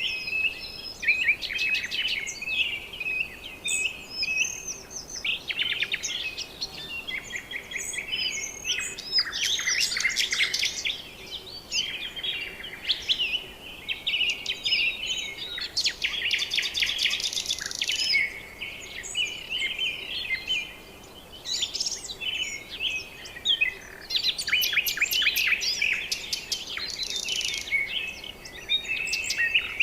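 A chorus of several birds calling at once, with chirps, short whistled glides and rapid trills overlapping almost without pause.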